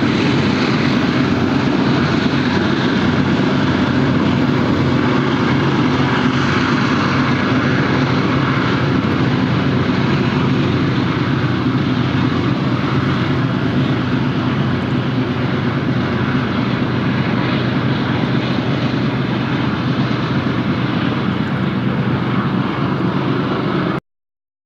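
Diesel locomotives of a loaded coal train working under load: a steady engine drone over rumbling wheel and rail noise. It fades slowly as the train moves away, then cuts off suddenly near the end.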